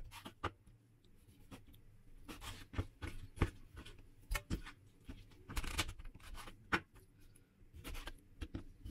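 Chef's knife cutting raw chicken breast into pieces on a wooden cutting board: the blade knocks and scrapes against the board in irregular strokes.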